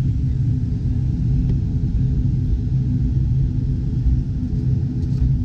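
Steady low rumble of an airliner's engines heard inside the passenger cabin, with a constant low hum.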